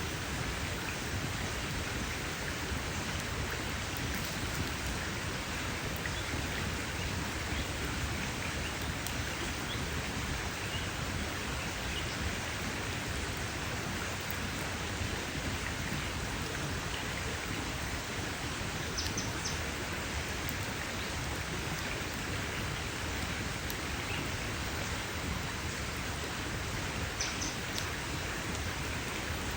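Campfire crackling: a steady hiss of burning wood with faint scattered pops, and two brief high-pitched sounds about two-thirds of the way in and near the end.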